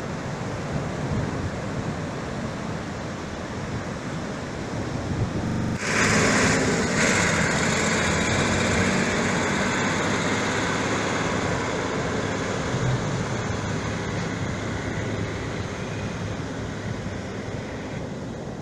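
Ocean surf washing in, with wind on the microphone. About six seconds in the sound turns suddenly louder and brighter, and a farm tractor's engine runs under the surf as it tows a boat on its trailer through the shallows.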